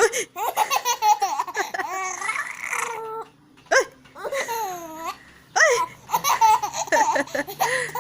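A young child laughing in repeated high-pitched bursts, some of them starting with a sudden catch like a hiccup.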